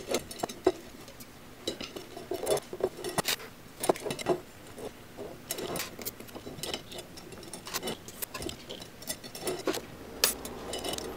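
Scattered light metallic clicks and clinks of BMX wheel spokes tapping against the hub flange and each other, as a spoke placed in the wrong hub hole is pulled out and moved to the right one.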